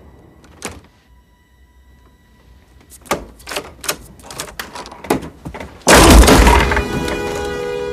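A door-side struggle in a film soundtrack: a single click, then a run of sharp knocks and clicks, then a loud crash about six seconds in, with tense music tones sustained after it.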